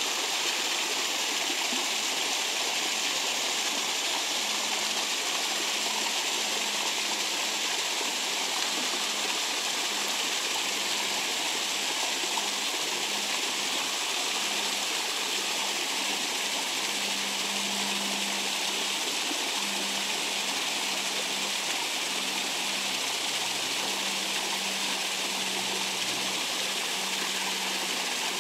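Flowing creek water, a steady, even rush.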